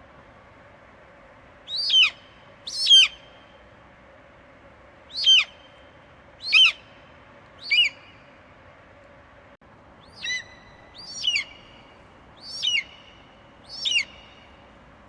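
Eagle screaming: nine short, high, piercing calls that each fall steeply in pitch, in two runs of five and four with a brief gap between them, each call trailing off in a faint echo.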